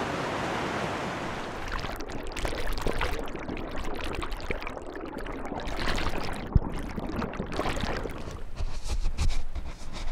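Fast-flowing river rapids: a steady rush of water that about two seconds in gives way to the choppier, bubbling sound of turbulent water picked up underwater by an Ambient ASF-2 MK2 hydrophone. A single sharp knock comes a little past halfway.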